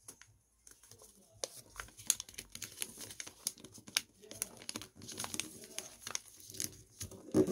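Origami paper (colored craft paper) crinkling and crackling as it is folded and creased flat by hand, in many quick crisp rustles. A dull thump near the end is the loudest sound.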